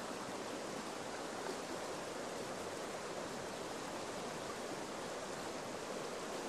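Steady, even rushing of a river flowing, with no change in level.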